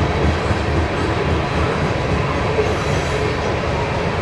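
BNSF freight grain train passing close by: steady, loud noise of the cars' wheels running over the rails.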